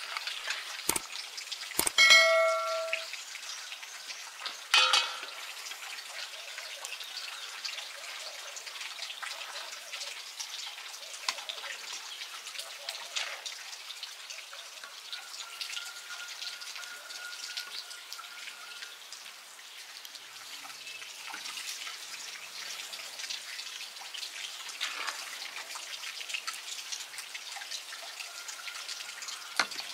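Hands kneading wet bread dough in an enamel bowl: a continuous wet squelching and crackling. A metal dish rings out once about two seconds in, and there is another clink near five seconds.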